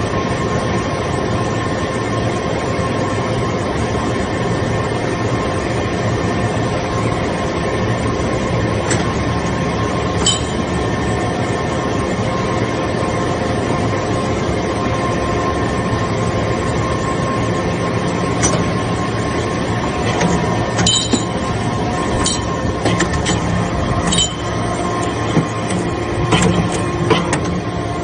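Metal shavings baler running: a steady machine drone with a constant hum, and scattered sharp metallic clinks that come more often in the second half.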